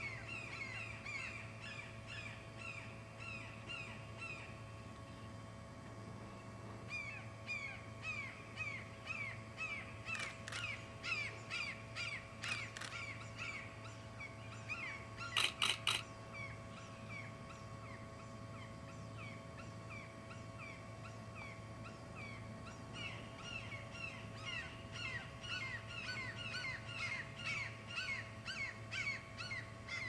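Birds calling in long runs of short, falling notes, several a second, coming in three stretches. A brief burst of sharp clicks sounds about halfway through.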